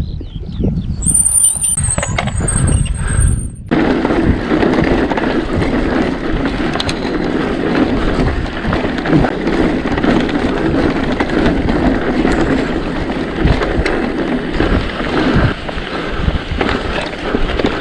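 Mountain bike brake squealing high-pitched for a couple of seconds. From about four seconds in, a steady rumble and rattle of the bike rolling over rough track takes over.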